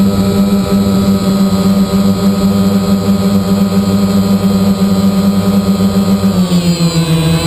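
DJI Phantom quadcopter's electric motors and propellers running with a loud, steady hum, heard from on board. About six seconds in, the pitch dips and then climbs back as the motors change speed.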